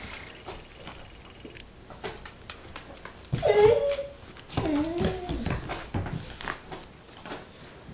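A Nova Scotia duck tolling retriever whining twice, two drawn-out wavering calls about three and four and a half seconds in, the first louder, with light clicks and scuffles of paws on the floor.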